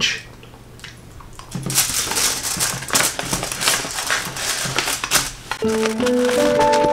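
Foil and paper chocolate-bar wrapper being handled and crinkled, a dense crackling that starts after a quiet second and a half; background music comes in near the end.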